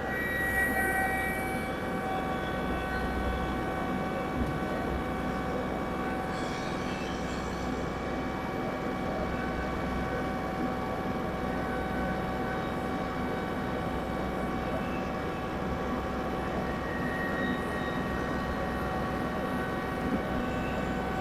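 Massey Ferguson 1835E compact tractor's diesel engine running steadily with the PTO engaged, driving a Woods rotary cutter; a steady whine of several tones rides over the engine.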